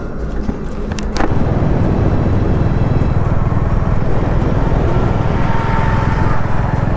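Motorcycle engine running with wind and road noise as the bike rides along a highway. About a second in there is a sharp click, and the sound turns louder and denser.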